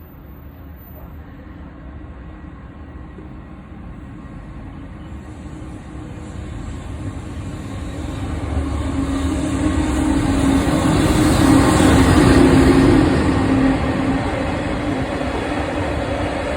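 Freight train hauled by a JR Freight EH500 'Kintaro' electric locomotive passing through a station. It grows steadily louder to a peak about twelve seconds in, with a steady hum at the loudest point, then the wagons keep rolling by.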